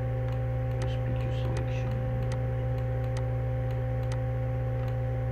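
A steady low electrical hum with a few fainter steady tones above it. About ten sharp, irregular computer mouse clicks sound over it as a selection is clicked out point by point.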